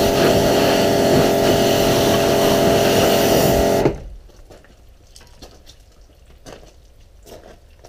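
Pressure washer running, its jet spraying water over a bare engine block with a steady hiss and motor hum; it cuts off suddenly about four seconds in, leaving only faint clicks and drips.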